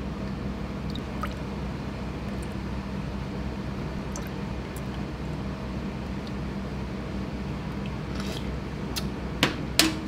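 Soy milk, then mirin, poured into a hammered aluminium saucepan on a kitchen scale, over a steady low background hum; a couple of sharp clicks near the end.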